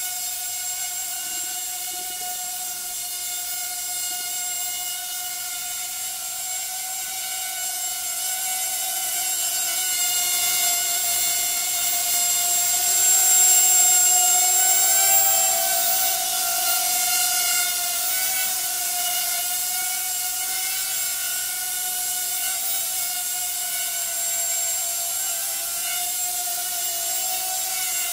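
Hubsan H107D micro quadcopter's four small motors and propellers whining in flight: a steady buzzing pitch that wavers up and down as the throttle changes, getting louder around the middle as it comes closer.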